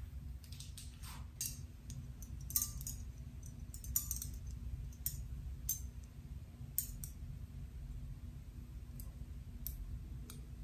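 Long fingernails scratching through short hair on a scalp: short, crisp scratches at irregular intervals, over a faint low hum.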